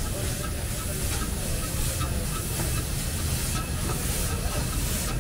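Small narrow-gauge steam locomotive King Arthur moving slowly past with its train, steam hissing steadily from low around the cylinders, over a low rumble of the engine and train.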